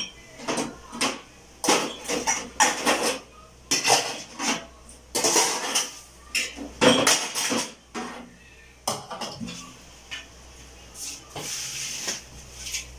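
Metal bowls and plates clattering and clinking as they are unloaded off a large metal serving tray into a stainless-steel sink, with many separate knocks.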